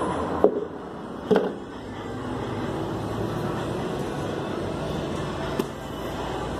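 Clatter of cleaning gear while a wet bathroom floor is washed: two sharp knocks about half a second and a second and a half in, and a lighter one near the end, over a steady rushing noise.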